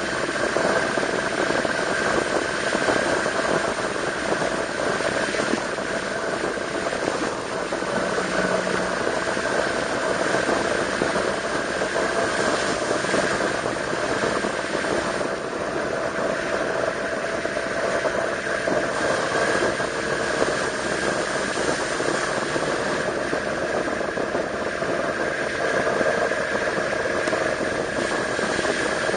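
Yamaha V-Max 1200's V4 engine running steadily while the motorcycle cruises, mixed with an even rush of wind and road noise.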